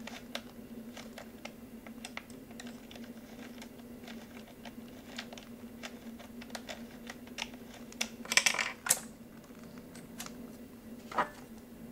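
Light scattered clicking and ticking of a screwdriver working the chain-tensioning screw of an Echo CS-353ES chainsaw as the saw chain is tightened on the bar. There is a louder clatter of metal about eight seconds in and a single click near the end.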